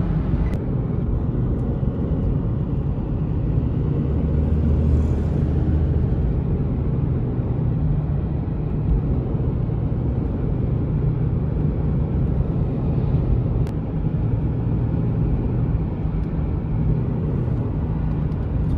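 Steady low rumble of a moving car's road and engine noise, heard from inside the cabin.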